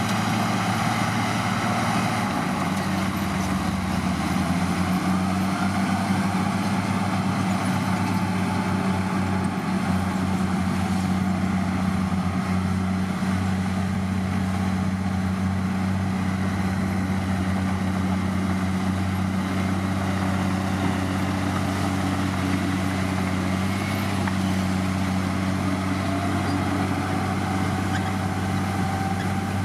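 Heavy diesel engine of an earthmoving machine running steadily with a constant low drone, its pitch shifting slightly about two seconds in.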